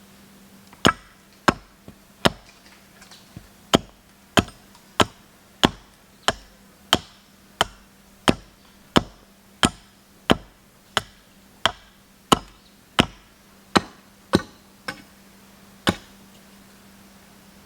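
Wood being chopped with a blade: about twenty sharp, even strokes at roughly one and a half a second, stopping near the end.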